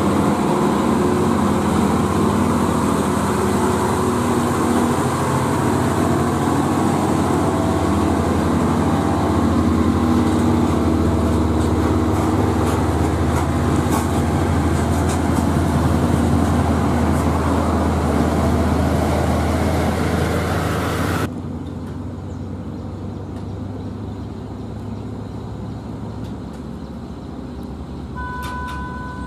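Hino 500 FM tractor unit's diesel engine running under load as it hauls a heavy trailer up the climb close by, with tyre noise. The sound cuts off suddenly about two-thirds of the way through to quieter, more distant traffic, and near the end a vehicle horn gives a short two-tone toot.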